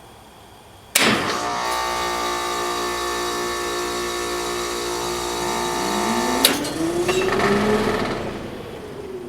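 Trane XL16 heat pump outdoor unit short cycling in heat: it starts with a sudden thunk and runs with a steady electrical hum for about five seconds, then cuts out with a sharp click. A whir then rises in pitch and falls away again as it winds down.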